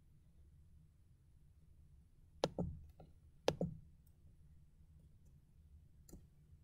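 Computer mouse clicking: two quick double clicks about a second apart midway, then a fainter single click near the end, over a faint low hum.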